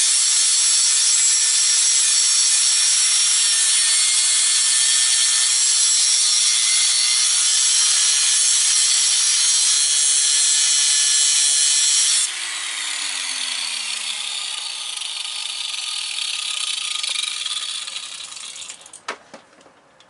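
Handheld power tool cutting through metal, a loud steady grinding with a high whine. About twelve seconds in it drops sharply in level and the motor's pitch falls as it winds down, fading out with a sharp click near the end.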